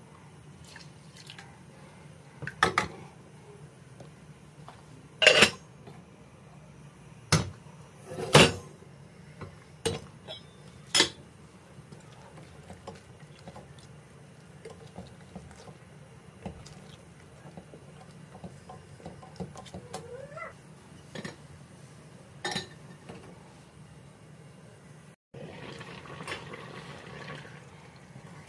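Cookware clattering: a cooking spoon knocking against nonstick pots and stainless steel lids, with about a dozen sharp, scattered clinks over a steady low hum. Near the end a soft hiss comes in.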